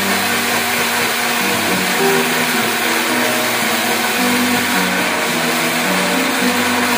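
Electric blender running steadily, its motor and blades churning fruit into a liquid purée, with background music playing over it.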